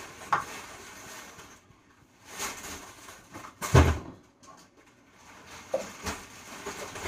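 Household knocks and clatter as groceries are put away: a few clicks and knocks, a brief rustle, and one heavy thump about four seconds in.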